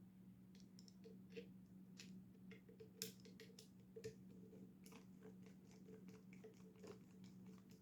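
Faint, scattered small metallic clicks and ticks of a Torx driver turning out the small body screws of a folding knife's handle, over a steady low hum.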